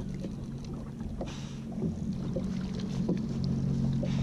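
Jet ski engine idling with a steady low hum, growing a little louder over the last couple of seconds.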